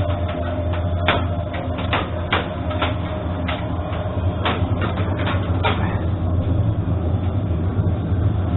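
Airsoft guns firing irregular shots, a dozen or so sharp cracks that stop about six seconds in, over a steady low hum.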